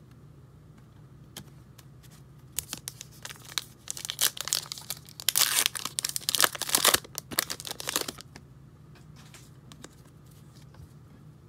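Foil wrapper of a 2020 Topps Gypsy Queen baseball card pack being torn open and crinkled. It crackles loudest about halfway through, then turns to a few faint rustles as the cards are slid out.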